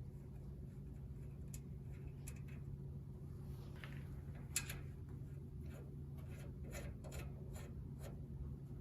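Light metal clicks and scrapes of hand tools working on the rocker assembly of an air-cooled VW Beetle engine, over a steady low hum. The clicks are scattered at first, with one sharper click about halfway, then come about twice a second near the end.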